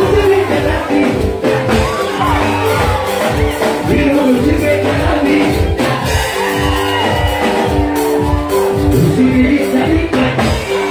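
Loud dance music with a steady bass beat and a singing voice, played over a club's sound system, with people in the crowd shouting and whooping.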